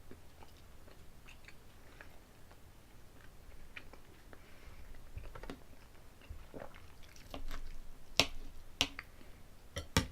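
Close-miked chewing and mouth sounds of someone eating soft turkey breast with gravy. A few sharp clicks come near the end.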